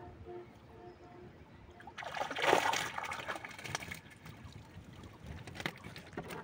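Water splashing and trickling as a bamboo fish trap is pulled out of the water and drains through its slats, loudest from about two seconds in. This is followed by scattered clicks and rustles as the trap is handled.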